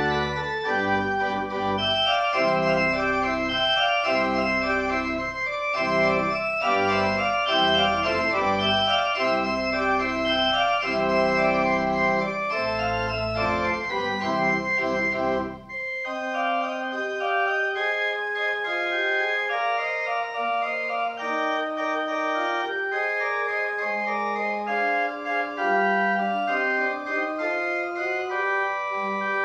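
Pipe organ playing sustained chords with deep pedal bass notes. About sixteen seconds in, the bass drops out after a brief break, and the music continues in a lighter register.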